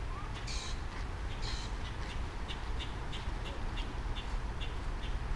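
Birds calling: two harsh squawks in the first two seconds, then a run of short, high chirps about three a second, over a low steady rumble.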